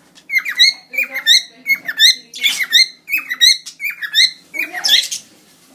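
Cockatiel singing: a quick run of short whistled chirps and warbling notes, repeated several times a second, that stops about five seconds in.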